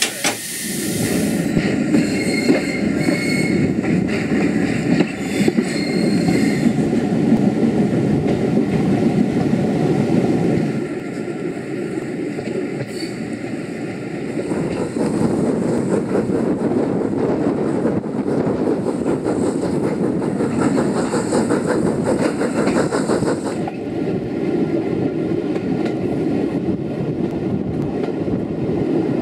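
Steam-hauled passenger train running along the track, heard from aboard: a steady rumble with the wheels clattering over the rail joints. A thin high tone rides over it for the first several seconds.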